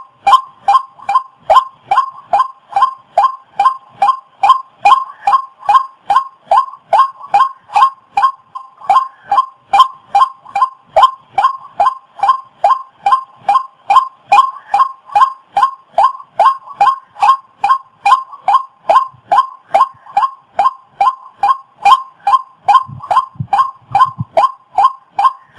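A bird's call: one short note repeated evenly about twice a second, with no break.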